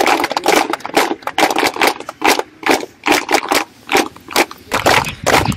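A group of schoolchildren clapping together, first in a loose patter and then in a steady rhythm of about two to three claps a second.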